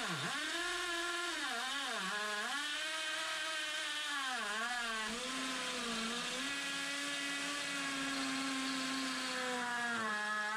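DeWalt hammer drill with a masonry bit boring a pilot hole through a 2x4 and into a concrete block. The motor's whine dips in pitch several times in the first five seconds as the bit bites and loads, then holds steady.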